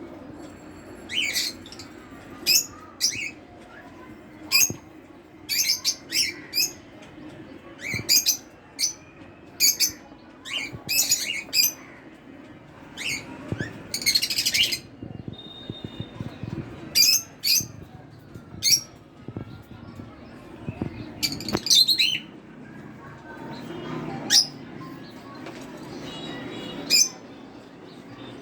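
Pet cockatiels and lovebirds chirping: short, sharp, high calls repeated every second or two, over a low steady hum.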